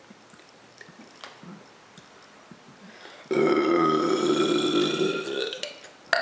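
A person forcing out one long, loud burp, starting about three seconds in and lasting about two and a half seconds.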